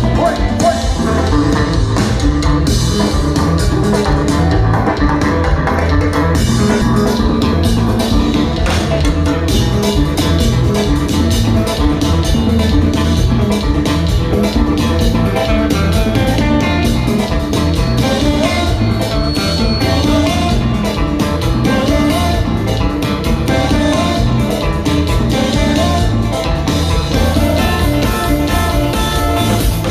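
Live kompa band playing, with guitar, bass guitar and drum kit over a steady beat.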